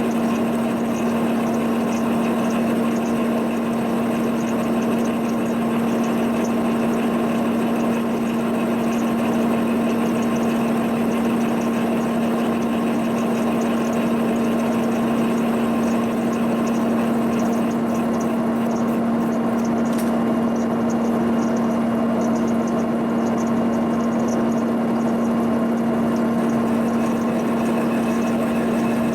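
Boring machine running a double-cutter boring bar through a worn cast-iron planter hitch bore, a steady machine hum with cutting noise that holds even throughout.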